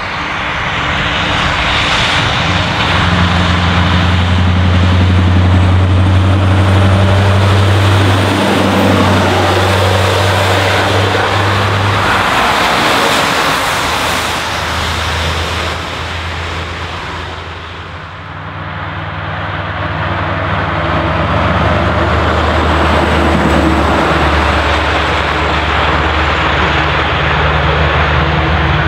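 Scania R500 truck's V8 diesel on a straight-pipe exhaust, a deep steady drone as the truck drives past under load. The sound sags briefly about eighteen seconds in, then builds again as the truck pulls away.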